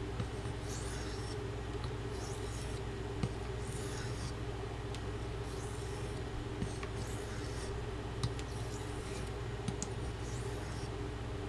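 T10 carbon-steel knife blade being stroked across a soft Arkansas whetstone: a soft, high scraping swish about every second and a half, over a steady low hum.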